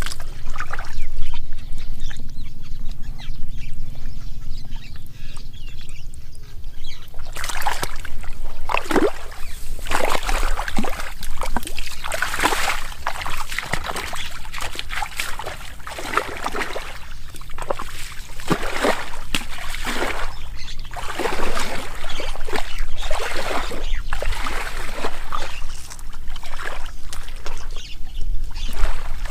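Irregular splashing and sloshing in shallow muddy water, starting about a quarter of the way in and going on in uneven strokes, over a steady low hum.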